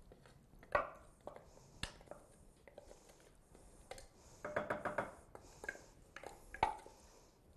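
Faint, scattered knocks and clatter of kitchen utensils, pan and containers being handled, the sharpest knocks about a second in and near the end, with a brief rattling, pitched sound a little past the middle.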